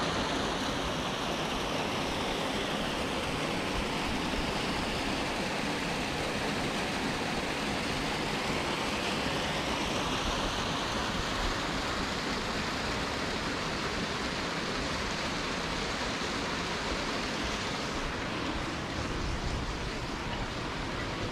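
Rushing water of a rocky canyon stream, a steady, dense hiss with no letup; its tone shifts slowly back and forth.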